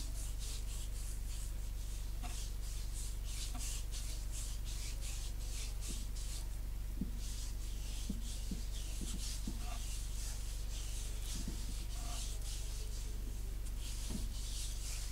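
Palm rubbing body cream into the bare skin of a forearm: soft, rhythmic swishing strokes, about three a second, becoming sparser in the second half, over a steady low hum.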